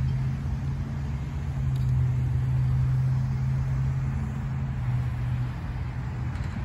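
Freight train cars rolling past a grade crossing, mixed with road traffic driving by. A steady low drone runs under the noise and fades about five seconds in.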